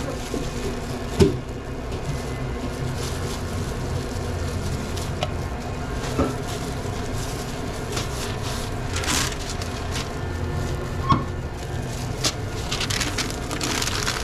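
Gloved hands working at a sandwich counter: a few light clicks and taps, and near the end a louder rustle of sandwich paper being folded around a sub, over a steady low hum of kitchen refrigeration.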